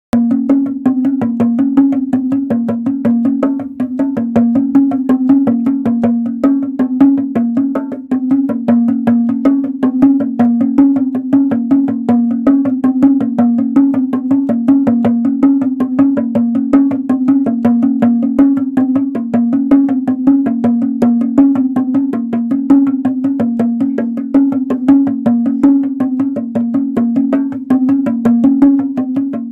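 Handmade handpan-shaped drum with a cardboard, paper and tapioca-starch body and heads of recycled PET bottle plastic, played with the fingertips. A fast, steady rhythm of short pitched taps moves between a few low notes.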